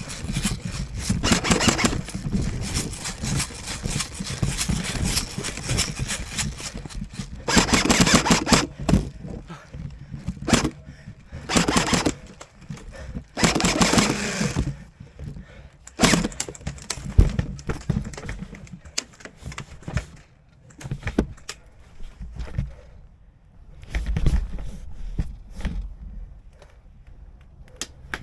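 Rustling, knocks and clicks from an airsoft player moving with gear, with three louder rushing bursts of noise in the middle.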